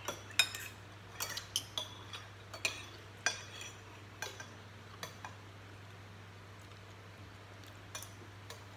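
Metal spoons and forks clinking and scraping against ceramic plates and bowls while eating: a quick run of light clinks in the first five seconds, then two or three more near the end.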